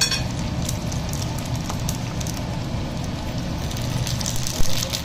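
Hot oil sizzling and crackling steadily as a gol gappa (pani puri) dough disc deep-fries and puffs up into a hollow ball, with a sharper pop near the end over a steady low hum.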